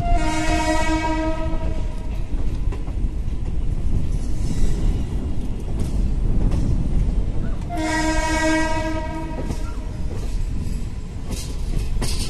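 Indian Railways express train's horn sounding two long blasts of about two seconds each, one at the start and one about eight seconds in. Under them runs the steady rumble and rattle of the moving train.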